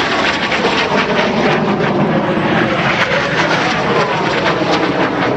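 Loud propeller airplane engine noise from an aircraft flying in the show, continuing throughout with a rough, crackling texture.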